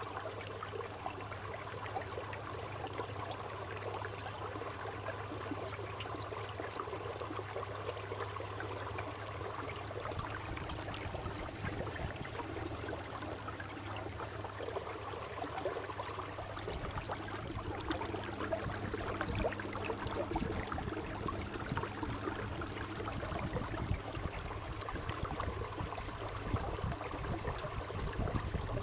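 Electric trolling motor humming steadily as the canoe moves, with water rushing and lapping along the hull. Irregular low rumbles join about halfway through.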